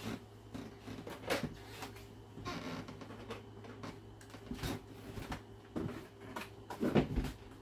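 Footsteps on a hardwood floor, with scattered light knocks and clicks over a steady low hum. A couple of heavier thumps come about seven seconds in.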